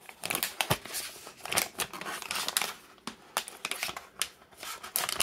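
A glossy plastic product pouch being torn open by hand: a run of crinkly rips and crackles, with a brief lull about three seconds in.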